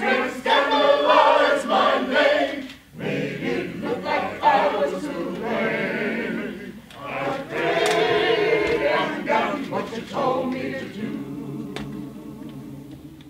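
A choir singing in phrases, fading out near the end.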